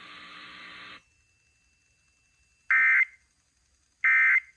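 Radio hiss that cuts off about a second in, then two short, loud digital data bursts about 1.3 seconds apart. These are the Emergency Alert System end-of-message (EOM) bursts that close the flash flood warning.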